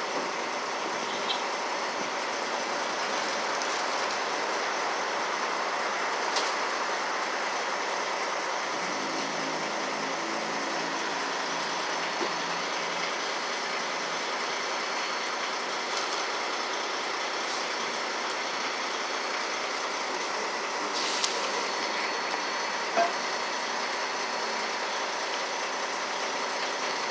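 Heavy truck engine running steadily close by, with a few short clicks.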